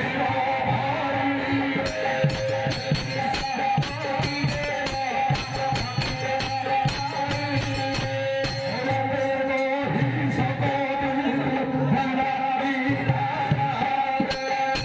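Live accompaniment music for a Ramlila stage play: steady held notes under jingling percussion that comes in about two seconds in and keeps a quick rhythm.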